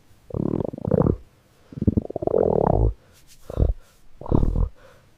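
AI-generated male hungry-stomach growling: four separate rumbles about a second apart, the second the longest at over a second. Another growl starts at the very end.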